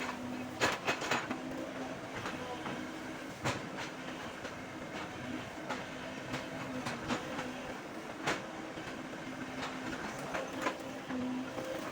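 Excavator running steadily with a held humming tone, with irregular sharp knocks and cracks from the machine at work.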